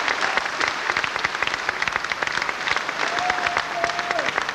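Audience applauding: a dense mass of hand claps.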